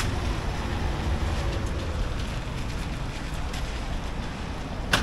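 Steady rumble and hiss of city traffic on rain-wet streets, with a sharp click at the start and another at the end.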